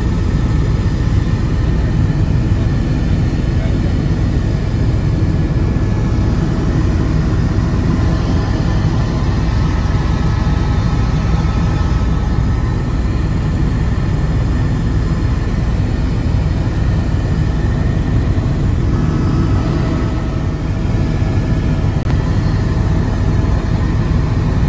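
Helicopter engine and rotor in flight, heard from inside the cabin: a steady, loud rumble with faint thin tones above it.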